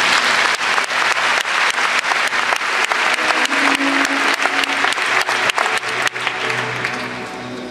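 Concert audience applauding, the clapping loudest for the first several seconds and dying away near the end, with the orchestra's held notes faintly beneath.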